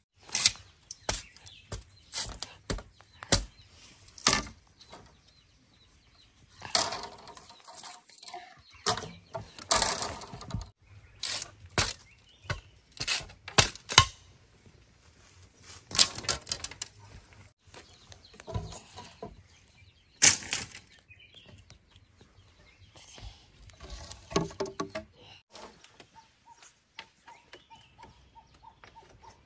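Bamboo being worked by hand: irregular sharp knocks and clatters of bamboo poles and split bamboo strips being handled, struck and laid down, with a few longer rustling scrapes.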